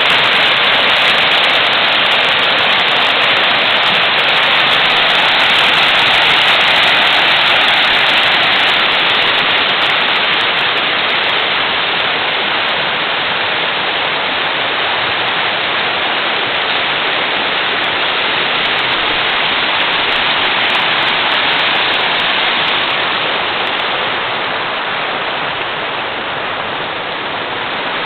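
Rushing whitewater of a rocky mountain creek, a loud, steady hiss of water tumbling over boulders, easing off slightly toward the end.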